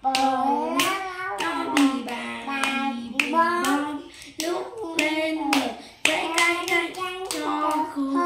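Children singing a song while clapping their hands along with it, the sharp hand claps cutting through the sung notes.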